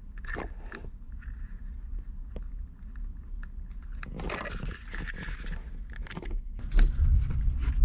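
Hands working the plastic USB port housing and its wiring connector out of a car's center console trim: scattered light plastic clicks, a longer rustling scrape about four seconds in, and a dull bump near the end.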